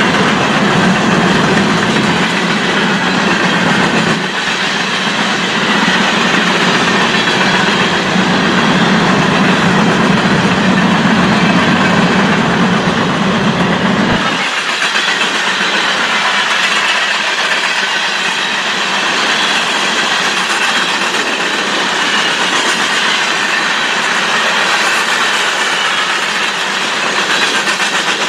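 BNSF freight train rolling past, a loud, steady rush and rumble of wheels on rail. About fourteen seconds in the deep low rumble drops away sharply while the higher rolling noise carries on.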